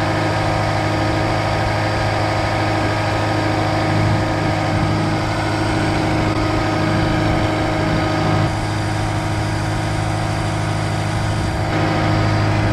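Caterpillar skid steer's diesel engine idling steadily close by, dropping slightly in level about two-thirds through and picking up again near the end.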